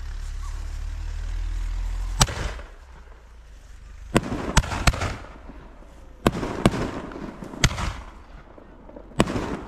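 Aerial fireworks bursting overhead: about nine sharp bangs at uneven intervals, several in quick runs of two or three, with a low rumble before the first bang.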